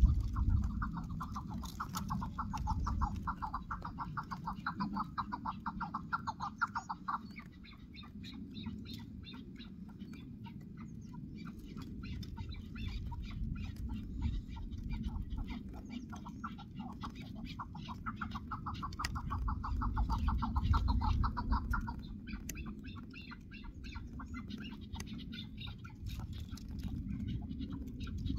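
Chukar partridge calling: a fast, rhythmic run of repeated chuck notes that lasts several seconds, stops, and comes back as a second run about two-thirds of the way through, with scattered quieter notes between. A steady low rumble runs underneath.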